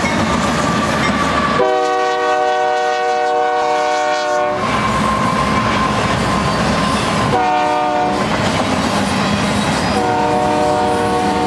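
Air horn of a BNSF GE diesel locomotive leading a double-stack intermodal train, sounding a long blast, a short blast, then another long blast starting near the end. Underneath, the locomotives' engines and the train's wheels rumble steadily as it passes.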